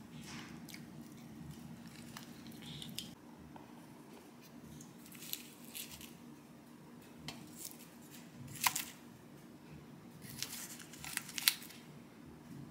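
Faint crinkles and light clicks of aluminium foil egg-tart cups being handled on a plate, a few scattered short sounds with a cluster near the end, over a low steady room hum.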